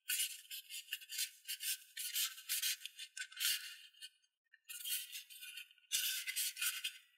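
Folded paper rustling and crinkling in irregular scratchy bursts as fingers press and shape an origami boat hull, with a couple of short silent gaps.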